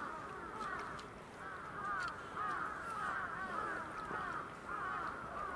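A flock of birds calling together, many short arched calls overlapping one another without a break.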